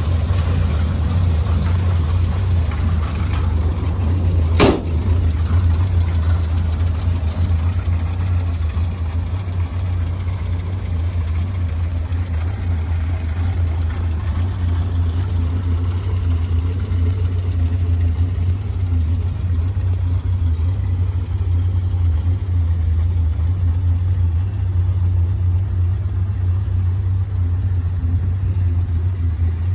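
1967 Citroën HY van's engine idling steadily, a low even hum, with one sharp click about five seconds in.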